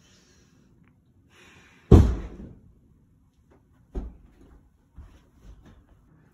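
A door slams shut with one loud bang about two seconds in, followed by a softer knock about two seconds later and a few faint taps.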